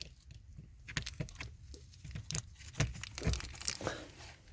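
Irregular crinkling, rustling and sharp clicks of handling, with no steady motor tone: the sump pump is not running.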